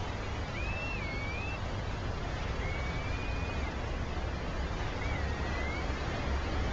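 A steady rush of surf and wind with a low rumble of wind on the microphone. Three drawn-out, wavering whistles, each about a second long, come near the start, in the middle and near the end.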